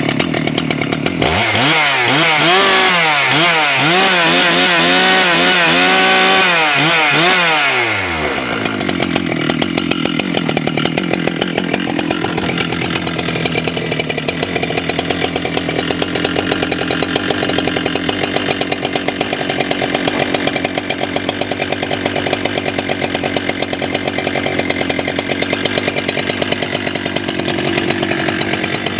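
Husqvarna 395XP two-stroke chainsaw held at high revs for about seven seconds, its pitch rising and falling. It then drops back to a steady, pulsing idle about eight seconds in.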